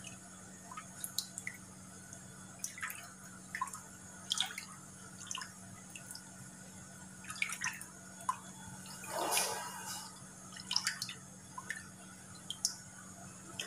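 A spatula stirring a thick green agar-agar pudding mixture in a non-stick frying pan: quiet wet sloshing with scattered small drips and clicks, and a longer, louder swish about nine seconds in.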